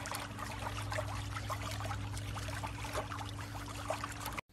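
A pug licking an ice pop: a string of short, wet licking sounds at an irregular pace, over a steady low hum.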